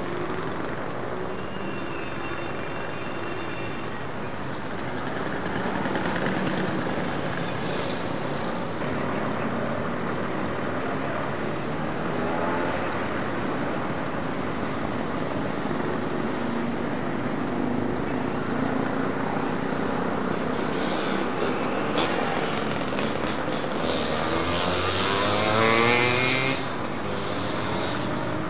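Town street traffic: motor vehicles passing with engines running, and one engine rising in pitch as it speeds up near the end, the loudest moment.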